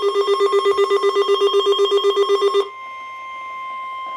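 Weather radio alert alarm beeping rapidly, about eight pulses a second, cutting off abruptly a little past halfway. Left behind is the steady, quieter NOAA Weather Radio 1050 Hz warning alarm tone, which comes before a tornado watch message.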